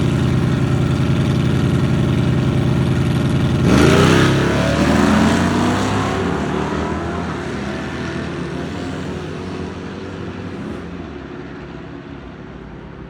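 Chevy II Nova drag car's engine idling with a steady, pulsing note, then launching hard about four seconds in: the revs climb in rising sweeps and the sound fades away as the car accelerates down the strip.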